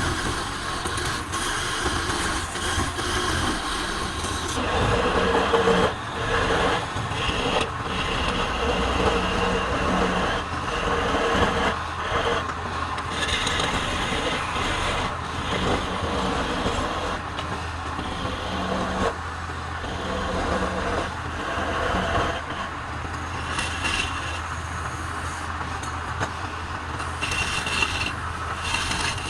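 Wood lathe running with a steady motor hum, and the scraping noise of a turning tool cutting the spinning wood, rising and falling in strength.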